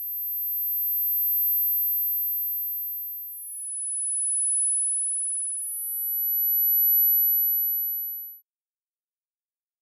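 Synthesized pure sine tones for tinnitus neuromodulation, pitched very high between 10 and 13 kHz: three tones in turn, each swelling in and fading out, overlapping briefly, the middle one lower than the other two. The last tone fades out well before the end.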